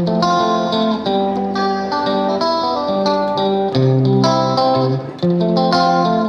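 Background music: a plucked guitar playing a bright, melodic instrumental tune.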